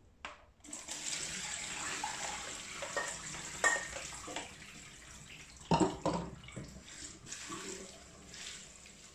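Soaking water poured from a steel pan through a plastic colander into a stainless steel sink, splashing and draining away from a batch of drumstick leaves. It starts about half a second in, then fades to a trickle, with a couple of sharp knocks along the way.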